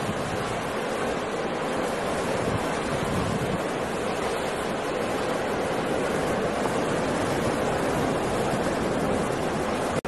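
Rough sea surf: a steady, continuous rush of breaking waves, with no single crash standing out.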